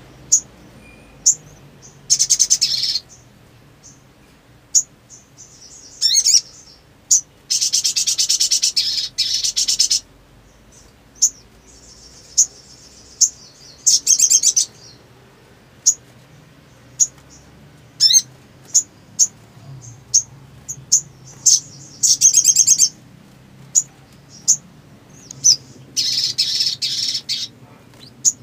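Little spiderhunter (sogok ontong) calling: single sharp, high chips every second or so, broken by several rapid rattling trills about a second long.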